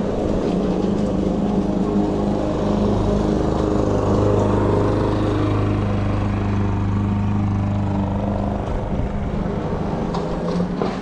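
Sondors Fold X electric bike riding along a road: a steady low motor hum over tyre and wind noise, the hum growing stronger for a few seconds in the middle.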